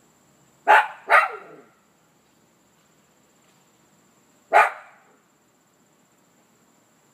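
Maltese dog barking: two quick barks about a second in, then a single bark a few seconds later.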